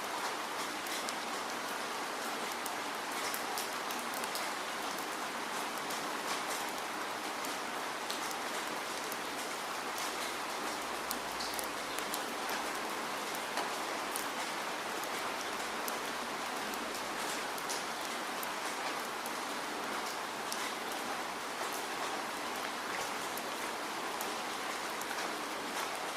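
Steady rainfall: an even hiss of rain with many individual drops pattering on a surface.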